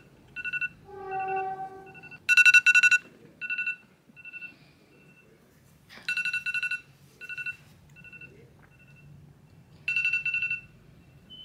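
Phone alarm ringtone going off: a high trilling ring that comes in loud groups about every four seconds, each followed by fainter repeats, with a brief lower tone about a second in. It is the alarm for waking up early.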